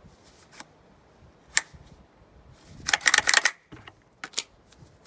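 Intratec Tec-22 .22 LR pistol being handled to clear a feed jam: scattered sharp metal clicks, with a short rattling run of clicks about three seconds in as the action is worked. The magazine is failing to feed rounds into the chamber.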